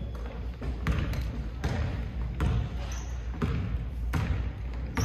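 Basketball being dribbled on a hardwood gym floor, a bounce about every three-quarters of a second.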